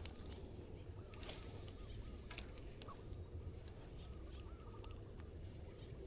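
Faint outdoor insect chorus: a steady high trill, with a faster pulsed chirping that stops about four seconds in. A few faint wavering calls come in the middle, and there are a couple of small clicks.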